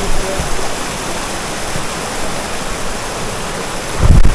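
Steady rushing of a waterfall's falling water. A brief low rumble a little after four seconds in.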